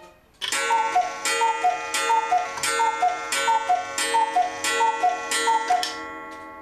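Anton Schneider Black Forest cuckoo clock calling the hour: the cuckoo call, a high note then a lower one, about nine times, each with a strike on the gong that rings on.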